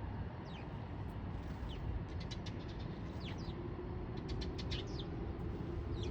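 Eurasian tree sparrows chirping: short, sharply falling 'chun chun' chirps scattered irregularly, several close together in the middle and a quick run near the end, over a steady low rumble.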